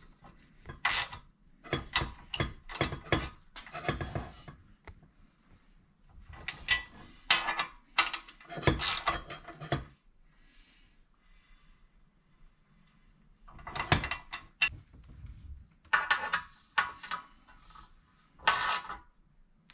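Hand tools clicking and clanking on a metal slip-on exhaust and its bolt-on cover as the bolts are fitted and tightened, with ratchet-like clicks. The sounds come in irregular bursts, with a pause of a few seconds around the middle.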